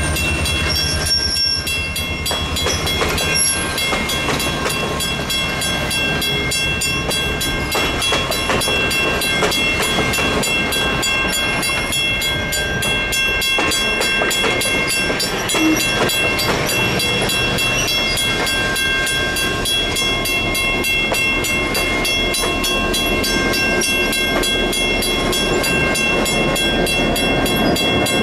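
Colebrookdale Railroad passenger train rolling along the track: steady wheel-on-rail noise with clickety-clack, and thin high squealing tones that come and go.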